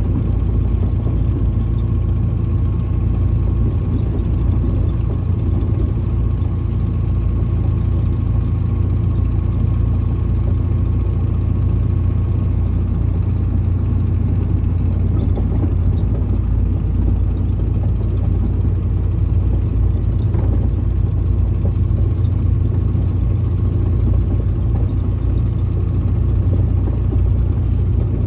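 Ford Cargo 712 light truck's diesel engine running steadily while the truck drives at an even speed, a deep unbroken rumble of engine and road with a faint steady whine above it.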